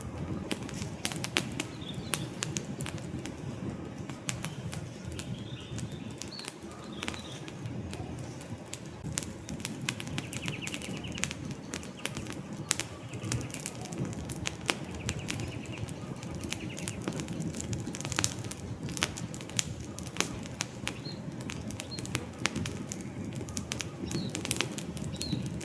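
Wood campfire burning: a steady low rumble of flames with frequent sharp, irregular crackles and pops from the burning logs. Faint bird chirps sound now and then behind it.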